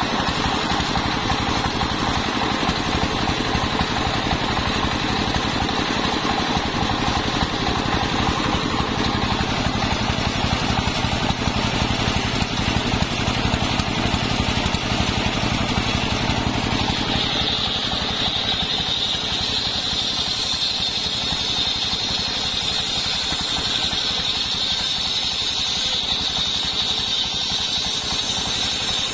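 Single-cylinder stationary diesel engine running steadily, belt-driving an 85 cm circular saw blade that is ripping sengon wood boards. A high steady whine grows much louder about halfway through.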